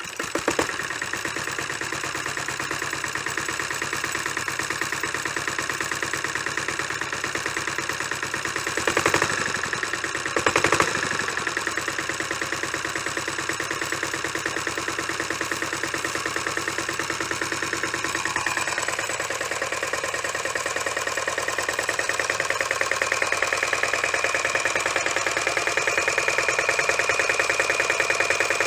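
Grillo two-wheel tractor's engine catching on a pull of the recoil starter, then running steadily with a rapid, even knock. Two brief louder bursts come around nine and eleven seconds in, and it runs a little louder and higher from about twenty seconds on.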